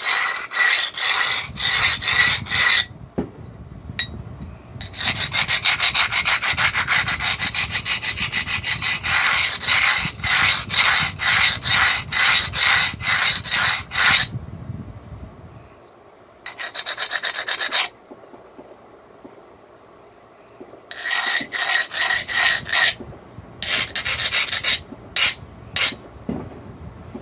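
Hand abrader scraped quickly back and forth along the edge of a cherry quartz slab, grinding the sharp edges down. The high gritty strokes come in several runs with short pauses, the longest lasting about nine seconds.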